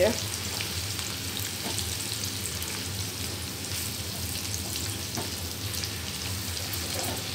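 Sliced shallots, garlic and red chilies frying in oil in a nonstick pan over a medium flame, a steady sizzle with fine crackling pops. They are being stirred with a silicone spatula.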